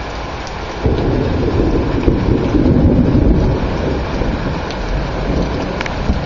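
Heavy rain pouring steadily, with a deep rumble of thunder that starts suddenly about a second in and rolls on.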